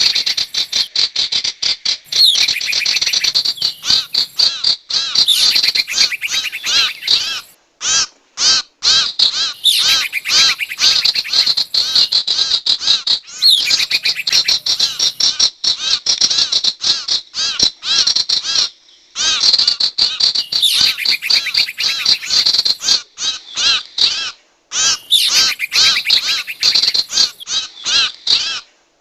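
Recorded lure call of the sirtu songbird: fast, dense runs of sharp chirping notes repeated in long phrases. There are brief pauses about 8 and 19 seconds in.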